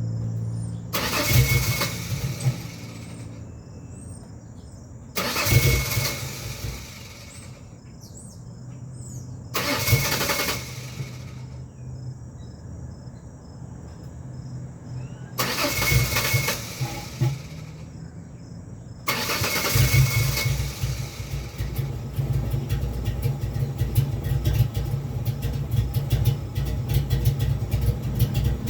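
2001 Ford Ranger 4.0 L V6 cranked by the starter in short bursts of about two seconds each, four times without starting. On the fifth try, a little past two-thirds of the way in, the engine catches and keeps running. This is a cold-morning hard start, cranking without firing.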